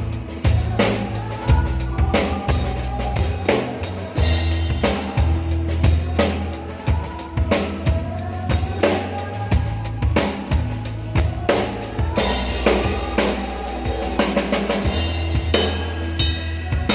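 Music led by a drum kit: kick and snare hits keep a steady beat over sustained bass notes, with a melody line above.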